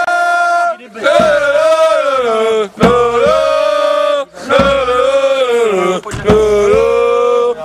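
Football supporters' chant sung by men, a loud lead voice holding long notes in four phrases with short breaks between.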